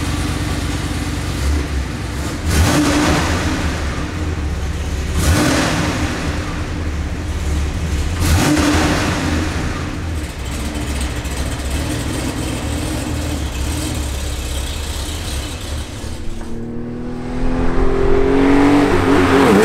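Porsche 911 SC's air-cooled flat-six, rebuilt to ST spec at 220 hp, idling with a low rumble and revved in three short blips about three seconds apart. Near the end the engine accelerates, its pitch rising steadily.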